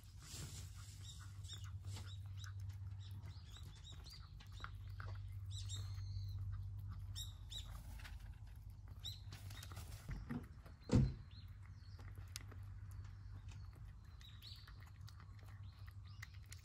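A cat eating wet cat food from a plate, with soft wet chewing and licking clicks close by, while birds chirp in the background. A single low thump about eleven seconds in is the loudest sound.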